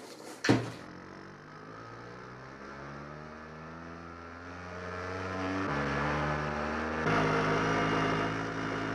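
Vintage film soundtrack music: held chords that grow louder and shift to new chords twice, about six and seven seconds in, after a brief sharp sound near the start.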